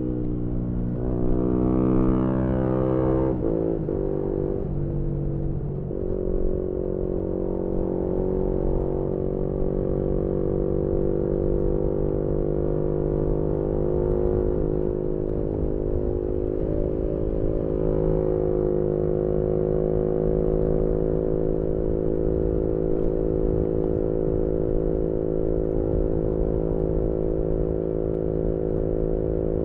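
Yamaha MT-125's single-cylinder 125cc four-stroke engine with an aftermarket GPR exhaust, heard from the rider's seat. Its revs rise and fall over the first few seconds, then it holds steady revs while cruising.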